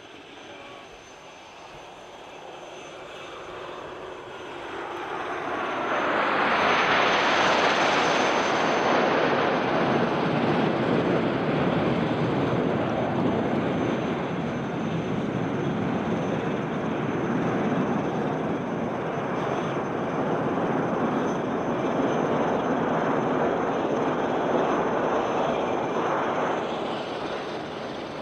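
Formation of nine BAE Hawk T1 jets, each with a single Adour turbofan, flying past. Their engine noise builds from about four seconds in to a loud, steady rush with a high whine at its peak, stays loud while they pass overhead, and begins to fade near the end.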